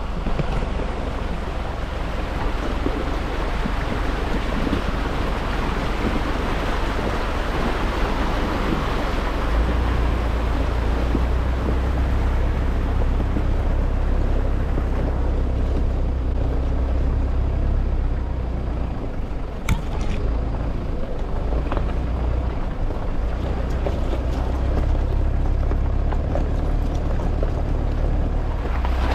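A vehicle driving, a steady low rumble under a rushing, wind-like noise, with one brief knock about two-thirds of the way through.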